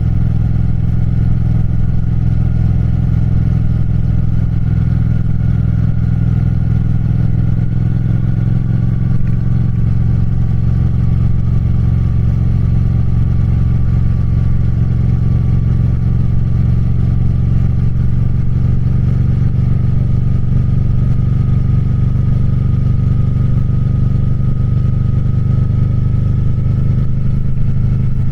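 Triumph Speed Twin's parallel-twin engine and exhaust running steadily for the whole stretch, with a deep, even note and a slight, slow fall in pitch.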